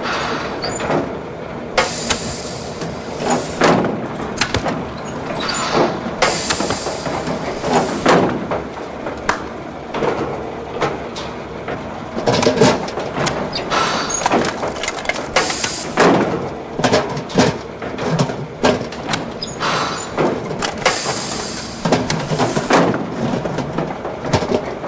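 Refuse truck's rear bin-lift being worked by hand: repeated metal clanks and knocks, with several short bursts of hiss.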